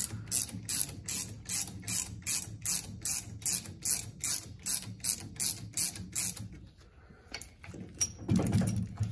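Ratchet wrench clicking at about four clicks a second as it turns the forcing screw of a three-jaw gear puller, drawing the pinion yoke off a Ford Super Duty rear axle. The clicking stops about two-thirds of the way in, and a few looser clicks and a louder low knock follow near the end.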